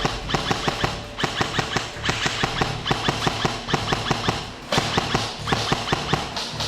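Airsoft guns firing in rapid bursts: a fast run of sharp clacks, many a second, with a couple of brief pauses.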